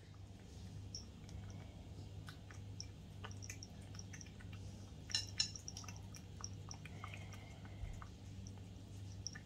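Domestic cat eating wet cat food from a plate: soft, wet chewing and smacking with many small clicks, the loudest two about five seconds in.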